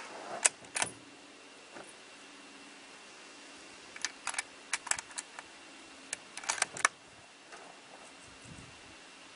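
Sharp clicks and light rattles in three short clusters: a couple about half a second in, a run around four to five seconds in, and another just after six seconds.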